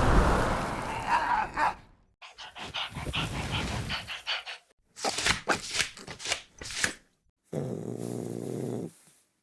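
A dog vocalizing in several short separate bursts, with silent gaps between them.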